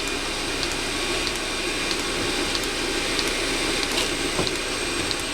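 Diesel heater running through its start attempt: a steady motor whirr, with the fuel pump ticking about every two-thirds of a second, and one knock about four seconds in.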